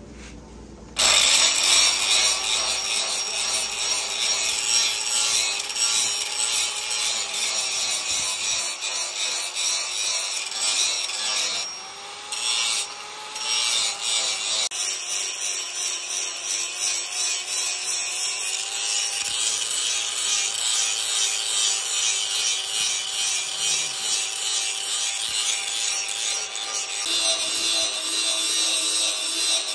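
Electric angle grinder with an abrasive disc switched on about a second in, then grinding the steel of a forged axe head, a hissing grind over a motor whine that wavers with the pressure. Near the middle the disc lifts off the steel twice briefly, and the motor pitch rises each time.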